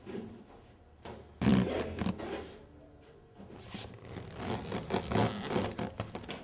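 Zipper being dragged in short rasping pulls around a bulging, overstuffed soft-sided fabric suitcase, getting louder toward the end. A louder scuffling burst of the bag being handled comes about a second and a half in.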